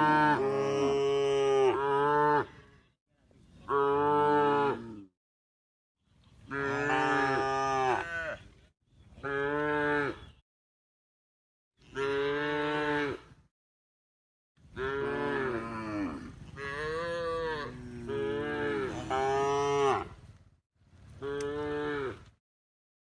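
Cows mooing: a string of about seven drawn-out calls that rise and fall in pitch, each one cut off by dead silence. The longest call runs about six seconds, just past the middle.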